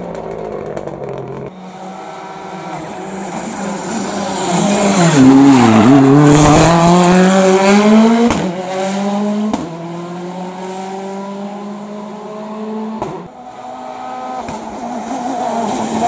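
Turbocharged rally car engine at full throttle on a tarmac stage. The Hyundai i20 R5 comes in with its engine pitch dropping as it brakes and downshifts, then accelerates hard away, pitch rising through several gear changes. Near the end a second rally car, a Citroën DS3 WRC, is heard approaching with its engine revving.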